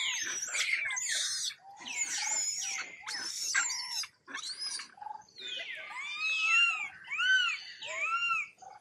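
Baby long-tailed macaque screaming in distress: a run of shrill cries that slide steeply down in pitch, then, near the end, several short arched squeals about half a second apart.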